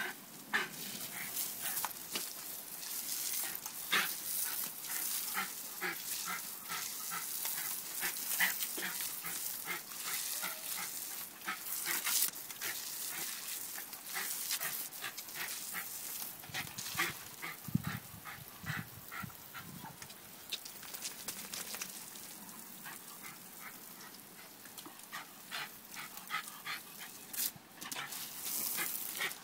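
A dog barking and yapping over and over as it snaps at the spray from a garden hose, over the steady hiss of the water spray.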